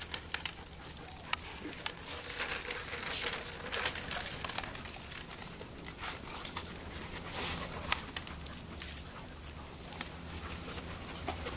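A group of dogs moving about close by, with breathy panting and small clicks and scuffs of paws on pavement, in short irregular bursts.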